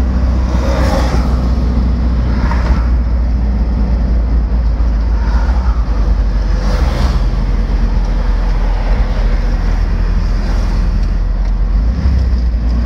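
Road noise inside a moving car: a steady low rumble of engine and tyres, with a few vehicles passing by in the other direction.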